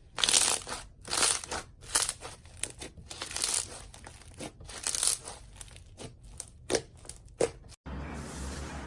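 Slime being squeezed and pressed by hand, making a run of crackling, popping squishes, with louder ones about once a second. Near the end it cuts off abruptly to a steady low background hum.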